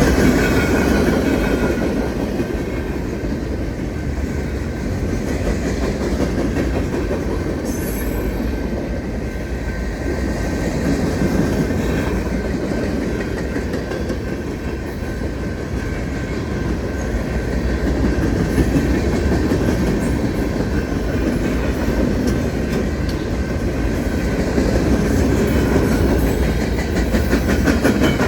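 Union Pacific manifest freight train's cars rolling past, steel wheels clicking over the rail joints in a steady, continuous clatter.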